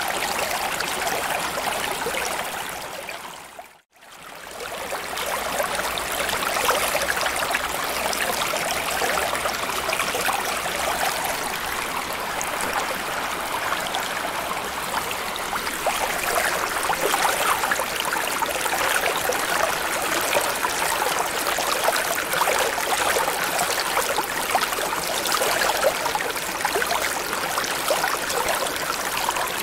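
Water ambience: a steady wash of running water that fades out briefly and comes back in at about four seconds.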